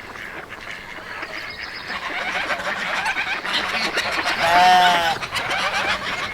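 Farmyard poultry calling over one another in a busy, overlapping chatter. About four and a half seconds in, one loud call stands out, lasting about half a second and rising then falling in pitch.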